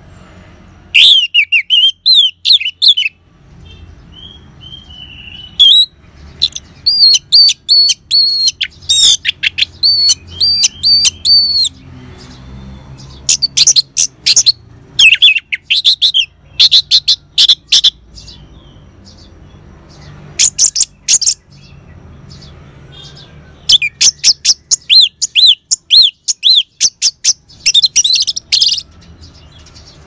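Orange-headed thrush (anis merah) singing: loud, high-pitched phrases of rapid repeated notes, in bursts of a few seconds broken by short pauses, over a faint low hum.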